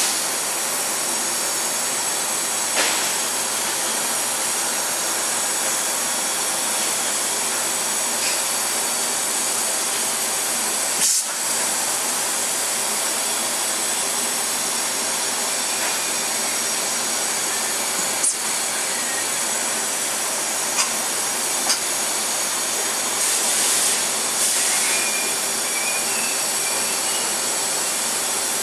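DMG Mori Seiki DMU 50 five-axis vertical machining center running: a steady mechanical whirr with several faint high tones, broken now and then by a short click.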